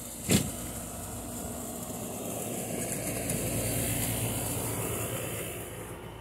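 A sharp knock about a third of a second in, then the rushing noise of a passing vehicle that swells, peaks midway and fades away.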